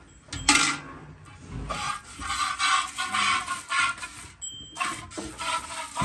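Milk squirting from hand-milked teats into a steel bucket, a rhythmic spray of about three squirts a second. A sharp knock about half a second in is the loudest sound.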